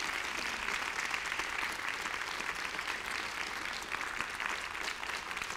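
Theatre audience applauding steadily: many hands clapping at once in a dense, even patter.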